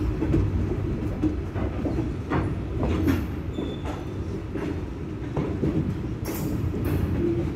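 Freight train of covered hopper cars passing close by: a steady rumble of steel wheels rolling on the rails, with irregular clanks and knocks from the cars.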